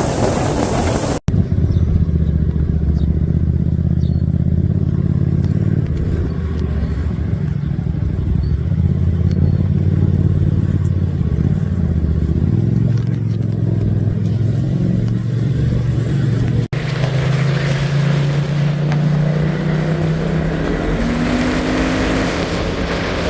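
Motorcycle engine running steadily while riding. It breaks off abruptly twice, and near the end its pitch rises as it speeds up.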